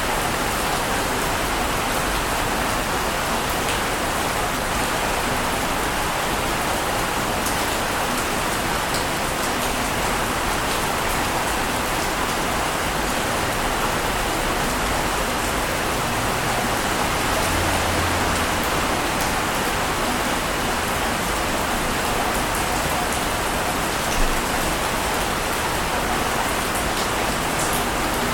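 Steady, even rushing of water noise with no separate wave surges, and one brief tap about twenty-four seconds in.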